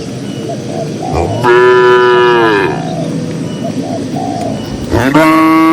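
Cattle mooing: one long moo that drops in pitch as it ends, then a second moo starting near the end.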